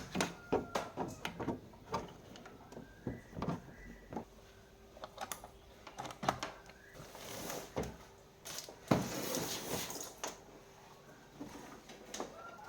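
Irregular clicks and knocks of things being handled, with two longer scraping, rustling noises past the middle.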